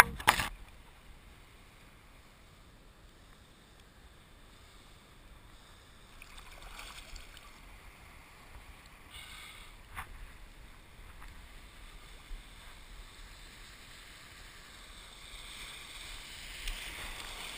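Shallow seawater splashing and sloshing around a wading angler's legs. There is one loud, sharp splash or knock just after the start, a few faint clicks later, and the water noise builds near the end.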